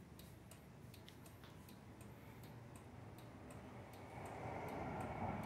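Mini bike's turn-signal flasher relay ticking faintly and evenly, about three or four clicks a second, as the blinker flashes on test. A soft steady noise comes up near the end.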